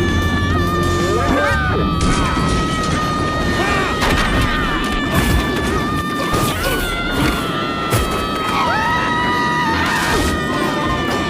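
Dramatic soundtrack music with held, sliding tones, broken by several loud crashes and impacts spread through the stretch.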